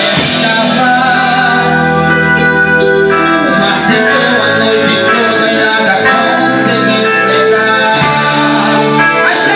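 A worship band playing, with guitar prominent.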